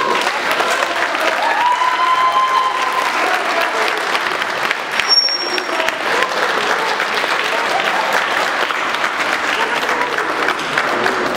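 Audience applauding steadily, with a few voices calling out among the clapping.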